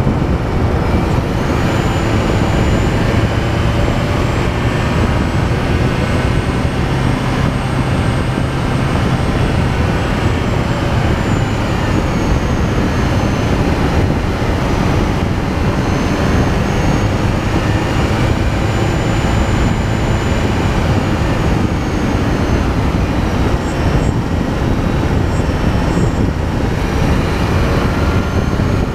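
Vehicle travelling along a road: steady wind and road noise with a low hum, and a faint high whine that slowly rises and falls.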